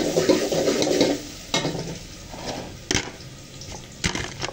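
Wooden pestle pounding garlic in a wooden mortar: a handful of dull, irregular knocks over the steady sizzle of oil frying in a pot.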